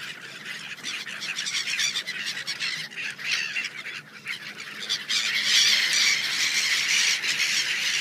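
A large flock of gulls calling all at once in a dense, high-pitched chorus, the din of a feeding frenzy on thrown food. It grows louder about five seconds in.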